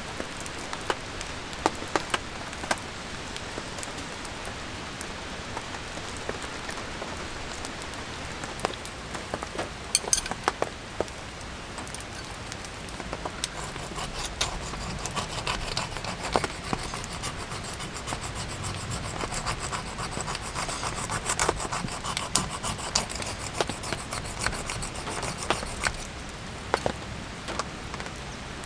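Rain pattering, with scattered sharp drips. Steady rasping scraping, like wood being rubbed or sawn, runs from about halfway in until shortly before the end.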